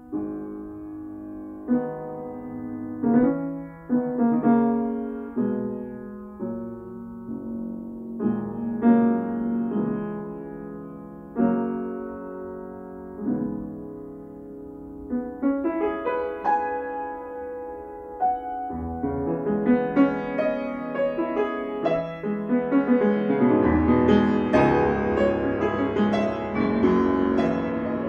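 Grand piano played solo. Slow, separated chords with short pauses between them, then the playing grows louder and busier about halfway through, building to a full, dense passage near the end.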